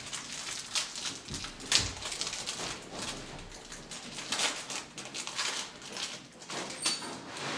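A football trading card pack being torn open and its cards handled and slid between fingers: irregular rustles and light clicks of paper and wrapper.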